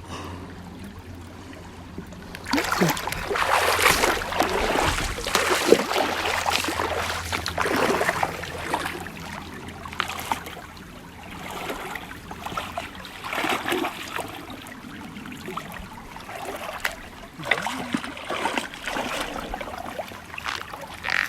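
Shallow river water splashing and sloshing in irregular surges, stirred by people fishing in it by hand. The sound starts about two and a half seconds in and comes and goes for the rest of the time.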